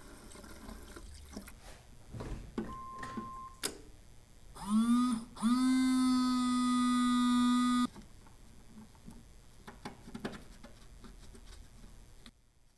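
Newly installed windshield washer pump of a 1986 AMC Eagle being tested: a small electric motor whine rises in pitch and cuts out after about half a second, then starts again and runs steadily for about two and a half seconds before stopping, showing the replacement pump now works. A short beep comes just before it.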